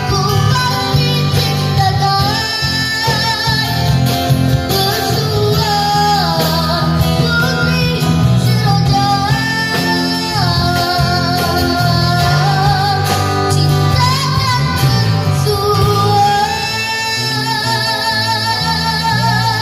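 Live band music: a young singer sings a melody with vibrato over strummed acoustic guitar, bass guitar and drums.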